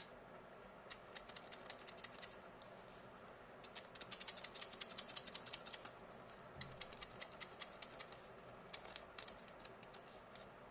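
Folded paper origami swan being worked by hand, its paper crackling and rustling in several short runs of quick ticks as its wings are made to flap.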